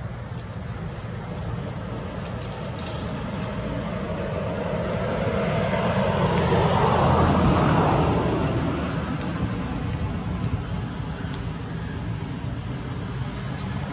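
Road traffic under a steady low rumble: a passing vehicle grows louder to a peak about seven seconds in, then fades away.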